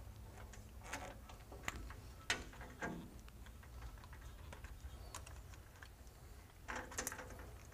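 Faint, scattered clicks and light rattles of hands working plastic push-to-connect air-hose fittings, releasing the hoses from a regulator and blowdown-valve assembly, with a small cluster of clicks near the end.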